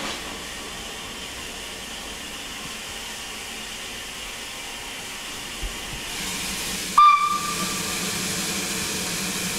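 Narrow-gauge steam locomotive with a steady hiss of steam. About seven seconds in, a short, sudden steam-whistle blast sounds, followed by louder, steady hissing steam.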